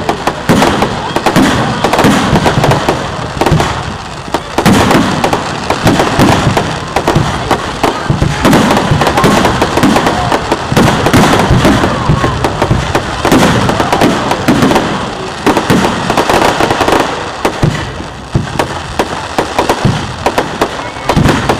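Fireworks display: a dense, unbroken barrage of shells bursting, with many bangs and pops a second.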